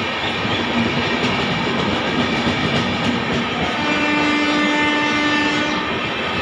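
Passenger coaches of an express train rushing past at speed, a steady loud rumble with wheel clatter. About four seconds in, a locomotive horn sounds one steady note for about two seconds.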